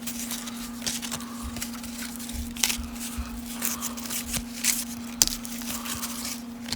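1990 Upper Deck baseball cards being handled and flipped one after another: a run of short, irregular papery slides and flicks of card stock. A steady low hum runs underneath.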